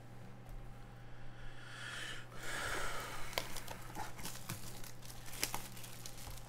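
Plastic trading-card pack wrapper being torn open and crinkled about two seconds in, followed by a run of light clicks and taps from handling the pack and cards.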